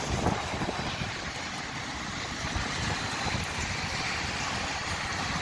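Steady rain falling, with wind buffeting the microphone in a low, uneven rumble.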